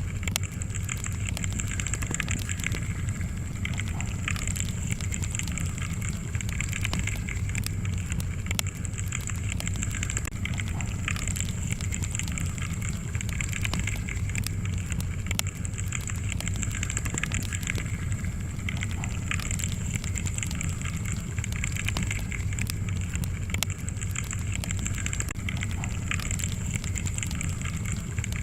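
Wood fire crackling in a fireplace: a steady low rumble of flames with frequent small pops and snaps.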